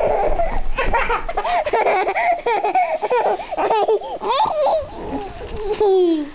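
A toddler girl laughing and squealing, high-pitched and repeated, ending in one long falling squeal.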